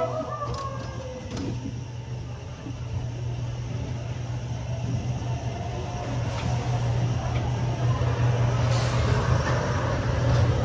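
Dark-ride caterpillar car rolling along its track, a steady low hum with rumbling wheel noise, growing a little louder toward the end.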